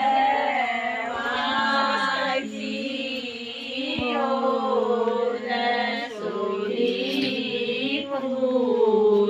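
A group of women singing a devotional folk song together in long, drawn-out phrases.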